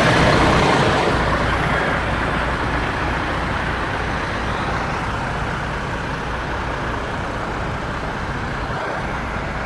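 MAN TGX 26.440 tractor unit's straight-six diesel idling steadily with a low hum. It is loudest close under the chassis and drops off over the first couple of seconds as it is heard from further away.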